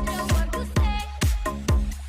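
Background electronic dance music with a steady four-on-the-floor kick drum, about two beats a second, over a heavy bass line and short synth notes.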